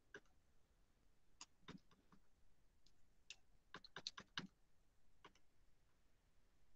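Faint, irregular clicks of calculator keys being pressed while a resistance is worked out: single presses spaced out, then a quick run of presses about four seconds in.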